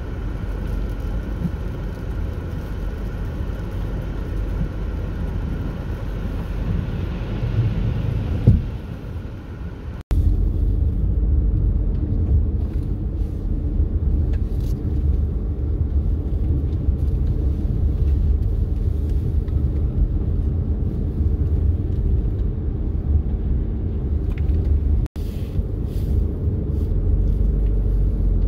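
Steady low rumble of a car's engine and tyres on a snowy road, heard from inside the cabin, with a single knock about eight seconds in. The sound drops out briefly twice.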